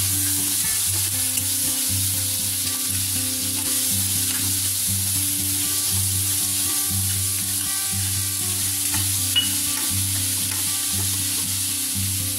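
Chopped vegetables sizzling steadily in hot oil in a kadhai over a high flame as they are stir-fried with a metal spoon, with a few light clinks of the spoon against the pan.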